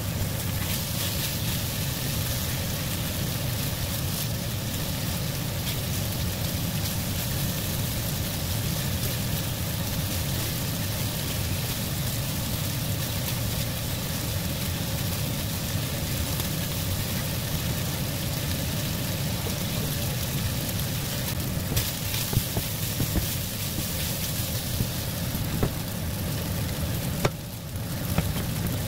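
Marinated pork shoulder slices sizzling steadily as they fry in oil in a non-stick pan, stirred with a silicone spatula, over a steady low hum. A few sharp taps of the spatula on the pan come in the last several seconds.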